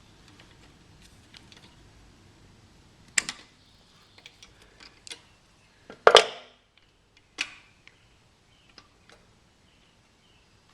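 Scattered sharp clicks and metallic knocks of hand work on a small-engine carburetor linkage, as the carburetor-to-governor linkage rod is bent and pulled off. The loudest knock comes about six seconds in, with others near three and seven and a half seconds.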